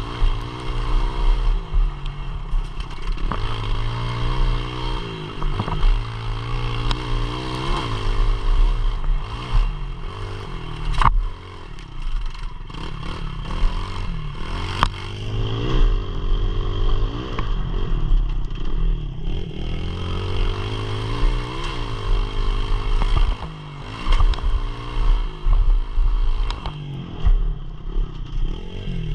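Pit bike engine revving hard, its pitch climbing and dropping again and again as the rider works the throttle through the gears, easing off briefly twice. Occasional sharp knocks and clatter cut through.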